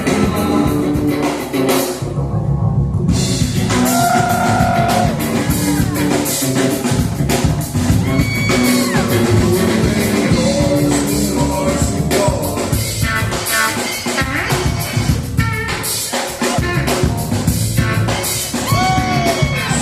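Rock music: a singer over a drum kit and guitar, with a steady beat.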